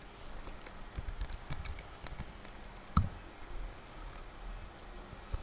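Clicking of a computer mouse and keyboard: a run of small quick clicks, then one louder click about three seconds in.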